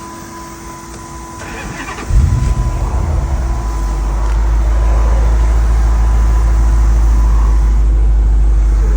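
Dodge Ram pickup engine starting: a short crank, then it catches about two seconds in with a rev and settles into a steady idle, running on its newly replaced fuel pump.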